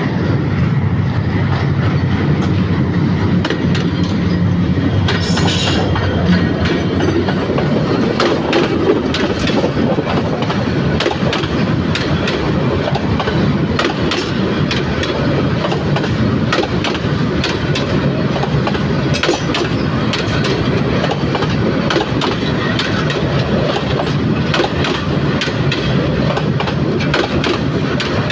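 Bangladesh Railway intercity passenger coaches rolling past close by, their wheels clattering over the rail joints in a steady run of clicks.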